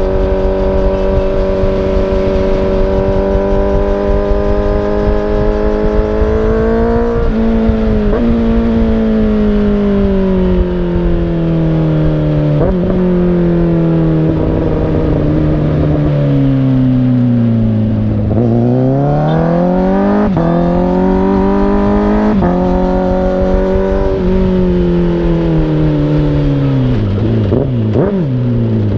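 2017 Honda CBR1000RR Fireblade's inline-four engine on the move through a Toce Performance Razor Tip aftermarket exhaust. The engine note holds steady, then falls slowly as the throttle eases off, and rises twice in steps. Short sharp breaks mark the gear changes, and the pitch falls again near the end.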